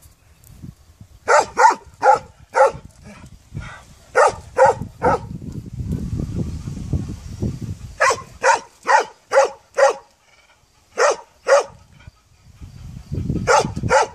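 A dog barking in quick runs of two to six barks, with pauses of a second or two between the runs.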